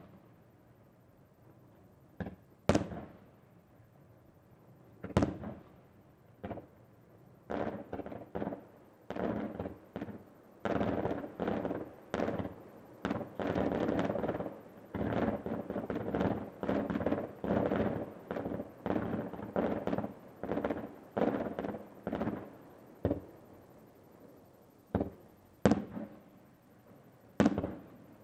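Aerial fireworks shells bursting: a few separate loud bangs, then from about seven seconds in a rapid run of bangs lasting some fifteen seconds, then single bangs again near the end.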